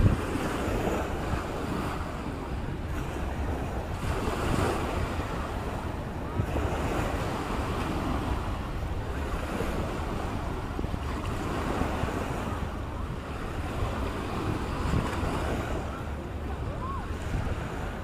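Small waves breaking and washing up a sandy beach, the wash rising and falling every couple of seconds, with wind rumbling on the microphone.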